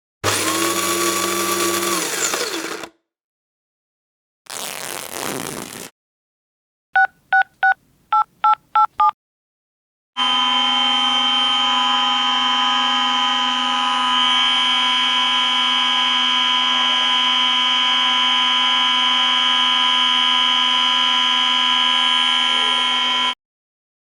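A run of separate electronic sound effects: a pitched sound lasting under three seconds, a short burst of noise, seven quick two-tone beeps like telephone keypad tones, then a long steady electronic tone of several pitches that stops abruptly about thirteen seconds later.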